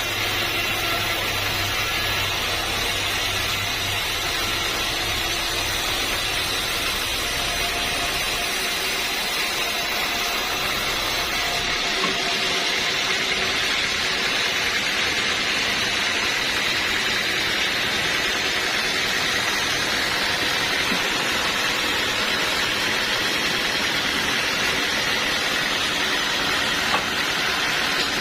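Sawmill blade cutting through an old teak log: a steady, hissing saw noise, with a low machine hum underneath that fades out about ten seconds in.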